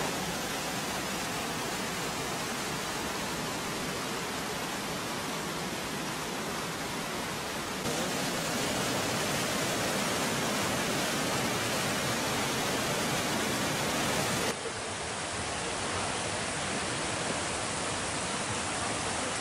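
Rushing water of small waterfalls on the Asopos river pouring over rock: a steady hiss of falling water. It gets louder about eight seconds in and drops back, duller, a few seconds before the end.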